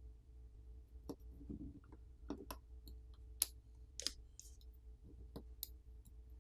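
Faint, irregular small clicks and taps of fingers and a thin internal cover handling a smartphone's opened back during disassembly, over a steady low hum.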